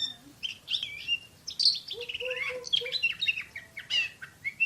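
Oriental magpie-robin singing a fast, tightly packed song of varied whistles and sharp down-slurred notes with hardly a pause, the rapid 'nembak' (shooting) delivery prized in Indonesian songbird contests.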